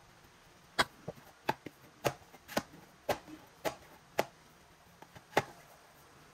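Soft yeast bread dough being kneaded by hand on the work surface: about eight sharp thumps roughly two a second as the dough is pressed and slapped down, with a short pause before the last one.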